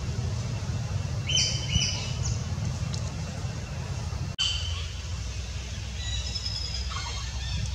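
Birds calling in short high chirps over a steady low rumble, about a second and a half in and again near the end. The sound cuts out for an instant about four seconds in.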